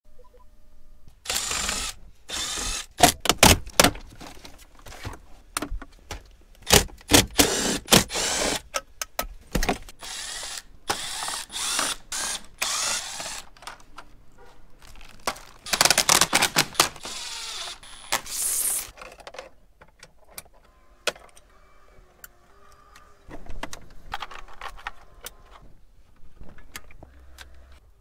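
Clicks, snaps and rattles of plastic truck dashboard trim, screws and small tools being handled as the dash is taken apart, with several louder noisy bursts among them in the first two-thirds and quieter, sparser clicks toward the end.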